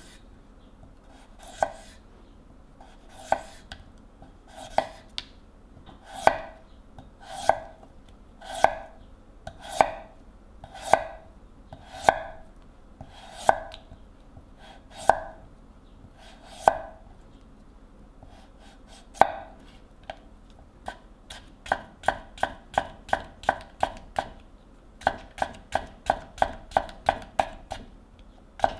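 Kitchen knife cutting a carrot on a ginkgo-wood cutting board, each stroke ending in a crisp knock of the blade on the wood. The strokes come singly about a second apart at first, then from about two-thirds of the way through in a quicker run of about three a second as the carrot slices are cut into matchsticks.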